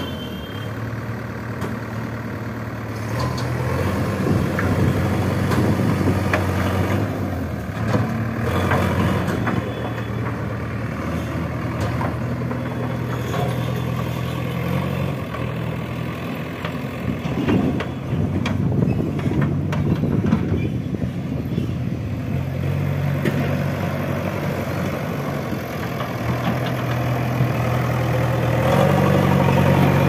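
JCB 3DX backhoe loader's diesel engine running, its pitch stepping up and down several times as it is revved under work, with a few sharp metal knocks from the machine.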